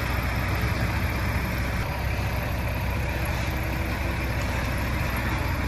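Motor scooter and truck engines idling steadily in stopped street traffic.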